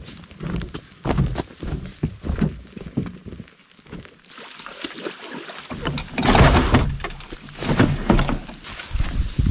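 Low footstep thuds on a forest trail, two or three a second, then from about six seconds in a steady hiss of rain with knocks and clatter of gear being handled in an aluminum canoe.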